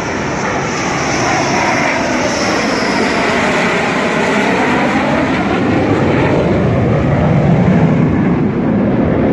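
Dassault Rafale fighter jet's twin Snecma M88 turbofans passing low overhead on landing approach: a loud continuous jet roar whose tone sweeps slowly as the aircraft goes over, the low rumble growing stronger near the end.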